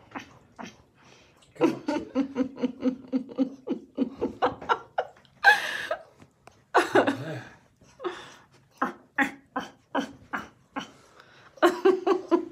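A person laughing in long runs of quick, rhythmic ha-ha pulses, with a couple of louder breathy bursts near the middle.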